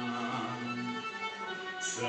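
Violin bowed in long, held notes, played solo.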